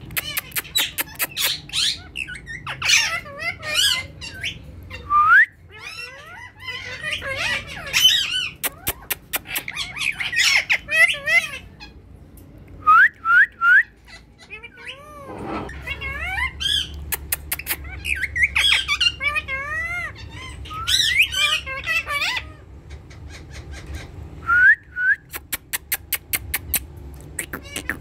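Indian ringneck parakeets calling: harsh squawks, rapid trains of sharp chirps and short rising whistles that come back several times.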